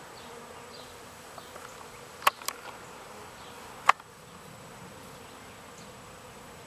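Honeybees from a newly installed package buzzing steadily around the hive, with three sharp ticks: two close together a little past two seconds in and one near four seconds.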